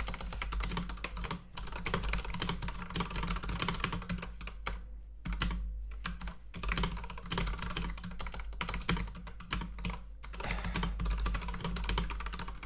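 Rapid typing on a computer keyboard: a dense run of key clicks, broken by a few brief pauses.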